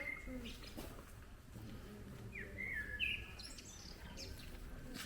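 A bird chirping faintly: a short phrase of quick, falling, stepped notes about two and a half seconds in, followed by a few brief higher notes, over faint outdoor background noise.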